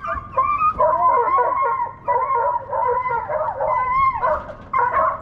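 Deer-hunting hounds baying and howling, drawn-out calls overlapping one another, with brief breaks about two seconds in and near the end.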